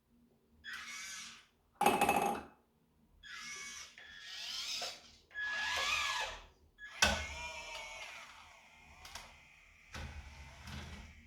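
Small electric motors of a 1/32-scale radio-controlled Liebherr excavator whining in a series of short bursts as it moves, the pitch rising and falling with each move. There is a sharp knock about two seconds in and another about seven seconds in.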